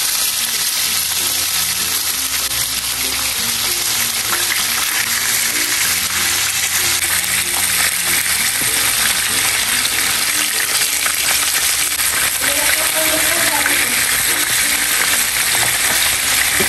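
Pieces of snakehead (dalag), catfish and tilapia frying in hot cooking oil in a pan: a steady sizzle that gets louder about seven seconds in.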